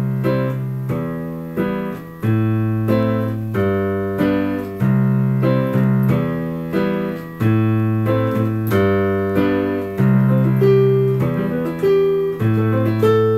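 Piano recording made through a computer's built-in microphone, played back unprocessed. Chords are struck about every two-thirds of a second, each fading before the next, over a high background noise floor.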